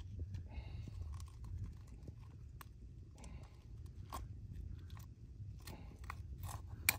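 Scattered clicks and light scraping of pliers working a hook out of a northern pike's toothy mouth, over a low steady rumble, with one sharp click near the end.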